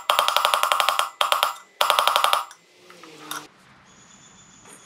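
Hammer tapping rapidly on the old wheel bearing used as a driver, seating a new ceramic bearing in a motorcycle wheel hub: ringing metal-on-metal taps in three quick runs, the last ending about two and a half seconds in.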